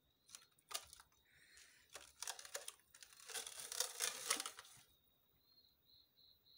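Wet fish being handled and shifted about in a metal basin: a few clicks and knocks, then a stretch of rustling and crinkling as the fish and the plastic under them are moved. Crickets chirp steadily in the background, pulsing near the end.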